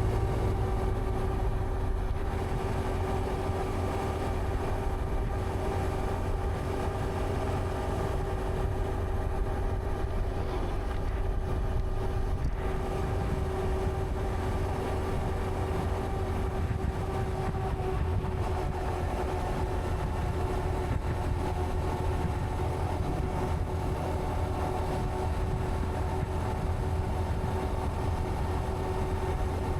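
Honda Monkey 125's single-cylinder four-stroke engine running at a steady road speed, over a heavy low rumble of wind on the camera.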